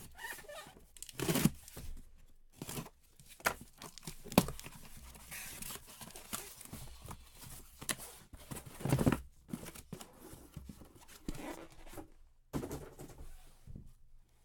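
Plastic shrink wrap and card-box packaging being torn open and crinkled by hand, in irregular rips and crackles with a few sharp knocks.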